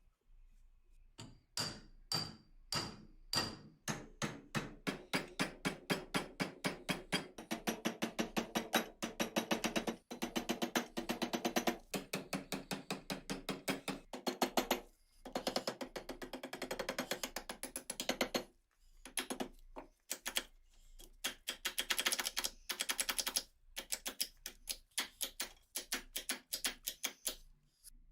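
Rapid, rhythmic metal strokes from hand tools working the parts of a seized Colt M1911 pistol, about four to six short ringing strikes or scrapes a second, stopping briefly a few times.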